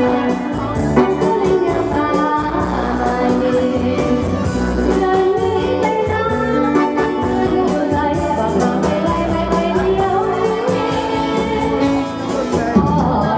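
A woman sings into a microphone over amplified live music from a keyboard with a steady beat, played through PA speakers in a large hall.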